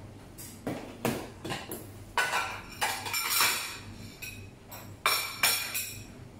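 Plates and cutlery being set down and handled on a kitchen countertop: a run of sharp clinks and clatters, busiest in the middle and with two more about five seconds in.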